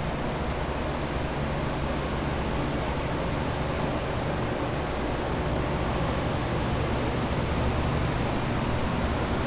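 Commercial air movers and dehumidifiers running together to dry a water-damaged office: a steady rush of blown air over a low motor hum, a little louder near the end.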